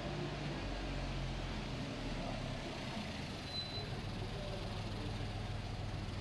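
Street traffic: a steady low engine rumble from motor vehicles under a continuous background hiss.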